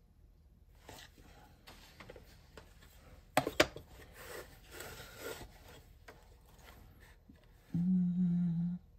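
Metal protractor with a swinging arm being handled and slid over leather on a plywood board: faint rubbing and scraping with light clicks, and one sharp click about three and a half seconds in. Near the end comes a steady low hum lasting about a second.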